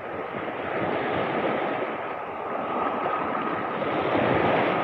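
Sea surf washing and foaming over shoreline rocks, swelling and easing in waves.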